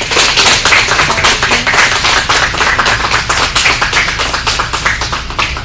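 A small group of people applauding, with dense, irregular hand claps that thin out and stop near the end.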